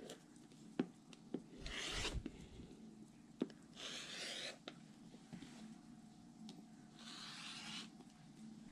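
Rotary cutter blade slicing through layered cotton fabric along a ruler edge on a cutting mat, three short rasping strokes about two seconds apart, with a few light taps between them, as a half-square triangle unit is trimmed square.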